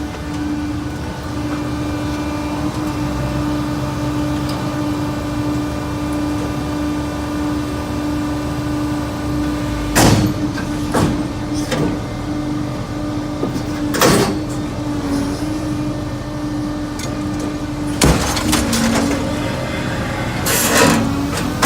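Harris TGS220B scrap baler running with a steady hydraulic hum, while the steel scrap (clips and sheets) gives sharp metallic bangs and clanks, about six of them spread from roughly ten seconds in.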